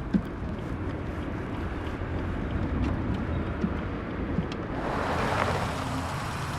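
Steady low rumble of vehicle and road noise with a few faint clicks; a brighter hiss swells about five seconds in.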